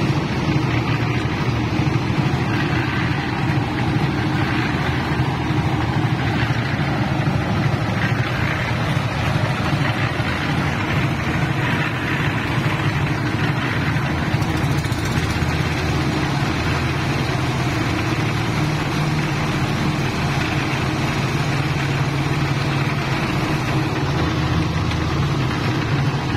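A portable cement mixer's small engine running steadily at a constant speed.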